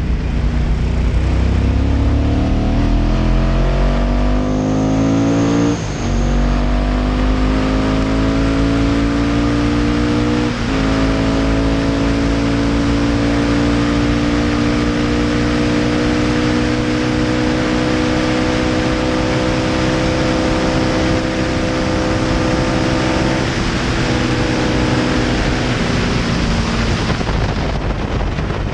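Classic racing sidecar outfit's engine at full throttle, heard from onboard with wind rush. It climbs through the gears, with quick upshifts about six and ten and a half seconds in, then rises slowly in one long pull.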